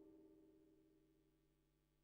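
Near silence, with only the last faint tail of a decaying Moog Matriarch synthesizer note fading out.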